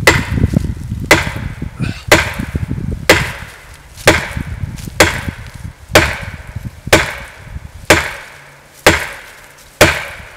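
Deliberate overstrikes with a Fiskars 28-inch chopping axe: the composite handle just below the head slams into a hardwood tree trunk about once a second, eleven sharp blows in all, as the trunk's wood comes apart.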